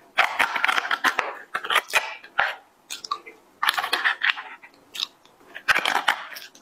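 Close-miked mouth sounds of eating soft chocolate lava cake: wet smacking and chewing in three bouts with short pauses. The plastic spoon scrapes and clicks against the foil cup as more is scooped.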